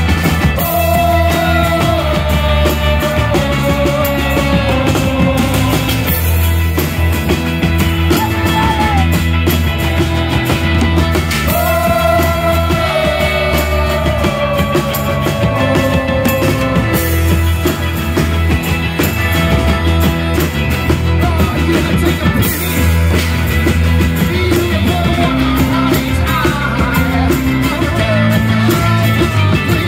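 Live rock band playing: drum kit and acoustic and electric guitars, with a voice singing long, gliding phrases over them.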